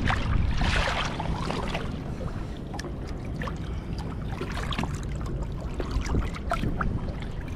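Wind rumbling on the microphone, with light trickles and small splashes of water at the boat's side where a mulloway is held in the water.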